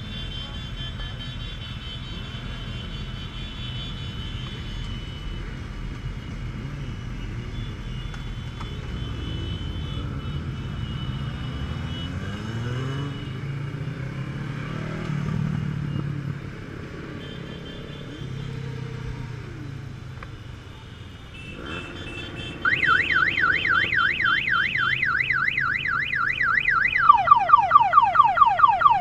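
Motorcycle engines running in a slow-moving pack, heard from aboard a Honda Gold Wing 1800, with engines revving briefly around the middle. About three-quarters of the way in, a loud electronic alarm-type siren starts: rapid up-and-down warbling sweeps. Near the end it switches to a faster, lower, pulsing yelp.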